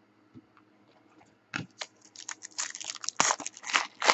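A foil trading-card pack being torn open, its wrapper crinkling in a quick, dense run of crackles that starts about one and a half seconds in.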